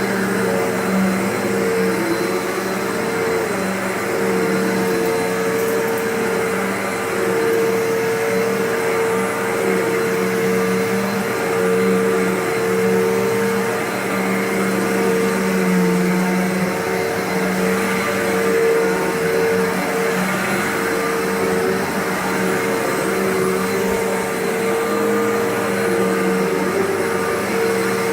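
Carpet Pro CPU-1 upright vacuum running steadily, a continuous motor hum with two held low tones over a whooshing airflow.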